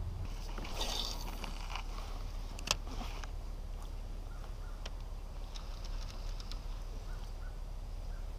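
Handling of a spinning rod and reel in a kayak: a rustle about a second in and a few sharp clicks, the loudest near three seconds in, over a low steady rumble.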